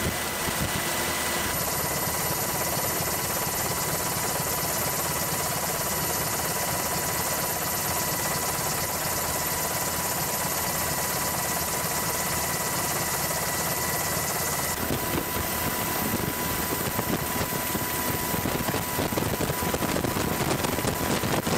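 Steady mechanical drone with a faint constant whistle tone, its character changing abruptly about a second and a half in and again around fifteen seconds in.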